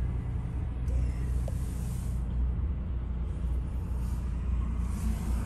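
Car driving, heard from inside the cabin: a steady low engine and road rumble, with a fainter tyre and traffic hiss that swells and fades a few times.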